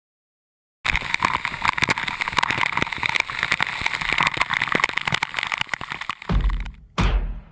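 Rushing whitewater and splashing picked up close by a GoPro during river rafting: loud and dense, with many sharp knocks. It starts abruptly just under a second in and cuts off near the end, where a slow, heavy drum beat of music comes in.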